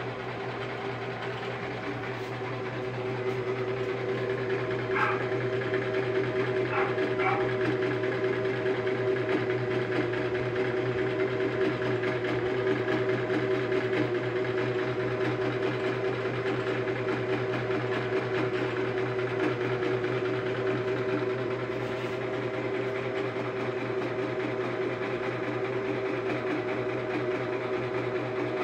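Butterfly electric sewing machine running steadily, stitching fabric; its motor hum grows louder about three seconds in and then holds steady.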